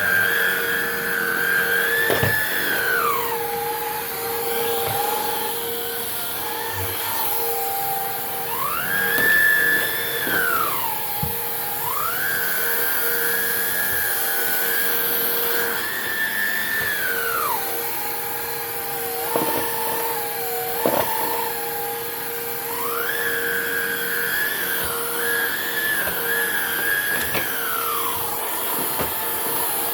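Hoover React cordless stick vacuum running, its whine dropping to a lower pitch and climbing back again several times, with a few brief knocks partway through.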